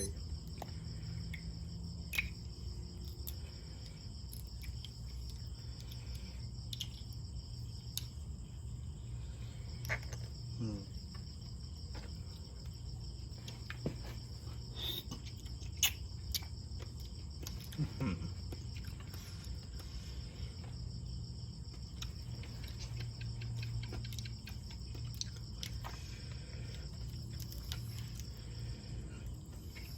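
Steady high-pitched insect drone, with a low hum underneath. Scattered short clicks and smacks of someone eating pickled shrimp and som tam by hand.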